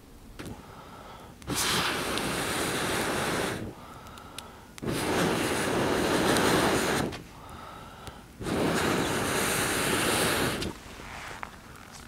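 A person blowing out hard three times, each long blow lasting about two seconds, with quieter intakes of breath between.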